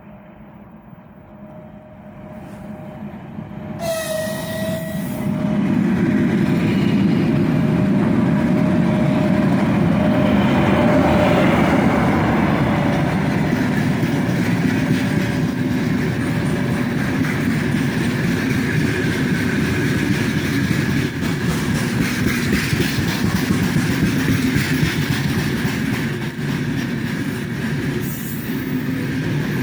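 A 4ES5K 'Ermak' electric locomotive with a long freight train approaches, growing louder over the first several seconds, with a short horn sound about four seconds in. The train then runs past with a steady rumble and the clack of wagon wheels on the rails.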